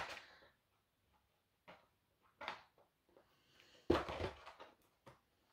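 Packaging being pulled off and handled on a diamond painting kit: a few short rustles and knocks, the loudest cluster about four seconds in.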